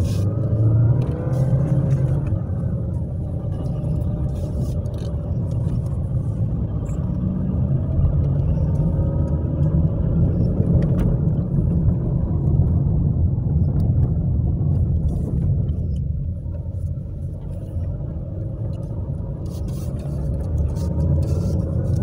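Car driving on a rough country road, heard from inside the cabin: a steady low rumble of engine and tyres, with a few faint clicks and rattles.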